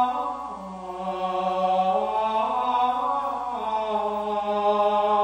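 A man's solo voice singing Gregorian chant unaccompanied, long held notes stepping slowly up and down in pitch.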